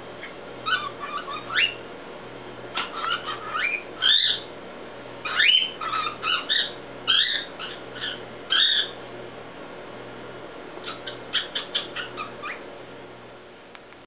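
Cockatiel singing: phrases of short whistled notes and chirps with rising and falling glides, several over the first nine seconds, then a quick run of short chirps after a pause.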